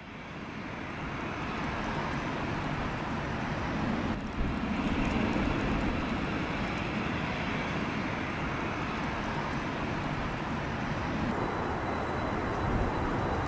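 Steady rumble and hiss of a large jet airliner's engines on approach. It fades in at the start, and a faint high whine joins near the end.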